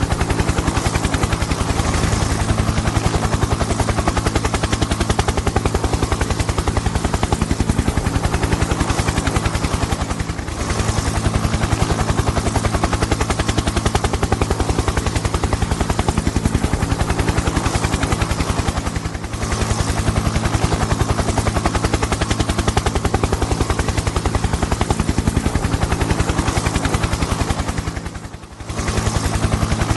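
Helicopter sound effect: fast, even rotor chop over a steady engine drone. It dips briefly three times, about nine seconds apart.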